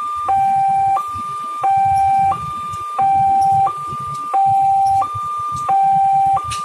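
Railway level-crossing warning alarm sounding two electronic tones in turn, a high note then a low note, each about two-thirds of a second. It is the warning that the barrier is down and a train is approaching. A low rumble runs underneath.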